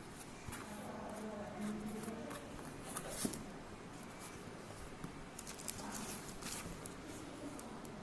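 Power bank box and packaging being handled: scattered scrapes, rustles and light clicks, the sharpest click about three seconds in.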